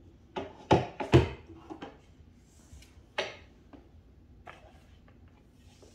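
A few sharp knocks and thumps on a hardwood floor, the two loudest about a second in and another about three seconds in, with light ticks between.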